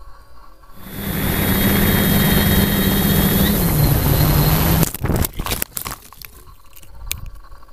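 Quadcopter's electric motors and propellers running loudly with a steady hum and a high whine, heard from the onboard camera with rushing air as it flies low; the hum drops a little in pitch about three and a half seconds in. Then a quick series of hard knocks and clatter as the quadcopter crashes into the ground and tumbles, followed by faint scattered clicks.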